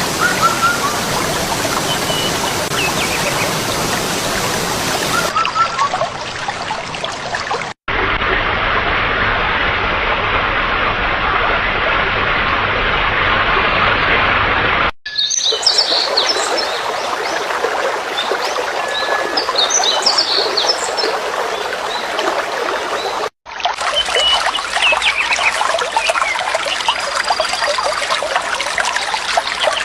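Running water with birds chirping over it, in four short clips joined by abrupt cuts.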